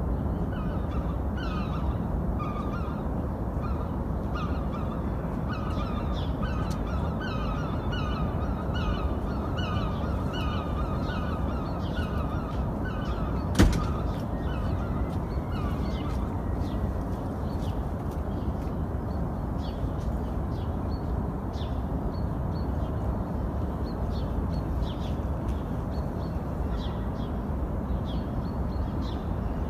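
Birds calling repeatedly, short calls about two a second, over a steady low rumble; the calls die away a little past halfway. A single sharp click just before the calls stop is the loudest moment.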